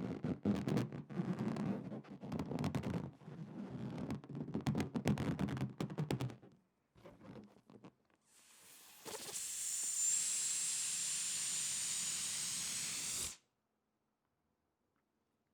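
Rubber balloon noise for about six seconds, choppy and low with many small clicks. Then air is let out of the balloon's neck as a steady hiss with a thin high whistle for about five seconds, cutting off abruptly.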